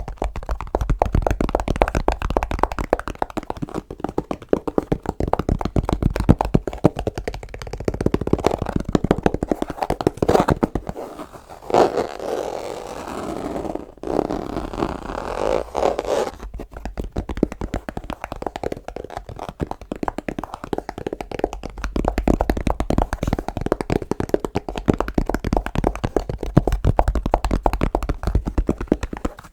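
Rapid, dense finger tapping and scratching on an object for ASMR, with a stretch of smoother scraping about twelve seconds in that lasts about four seconds.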